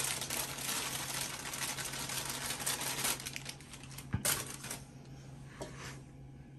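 Bag of dry brownie mix rustling and crackling as the powder is tipped and shaken out into a stainless steel mixing bowl. The rustling thins out after about three seconds, and a single light knock comes about four seconds in.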